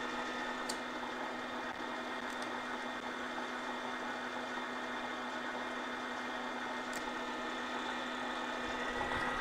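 Bridgeport milling machine's spindle running at a steady hum while drilling out a broken heat-shield screw in a steel motorcycle exhaust pipe. A few faint ticks, and a sharp click right at the end.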